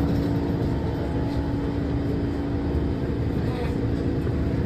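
New York City subway train running, heard from inside the car: a steady low rumble from the wheels on the track, with a steady hum that fades out about halfway through.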